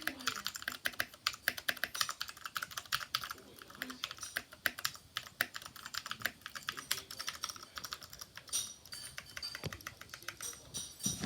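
Fast typing on an RK61 mechanical keyboard with lubed clicky blue switches, modded with PE foam and tempest tape: a dense, uneven stream of sharp key clicks.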